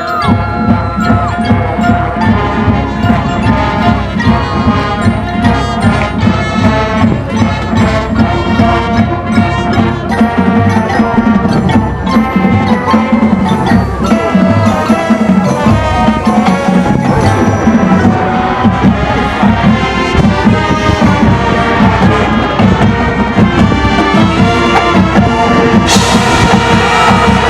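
High school marching band and front ensemble playing loud music full of mallet percussion and drum strikes, with a bright crash-like wash entering near the end.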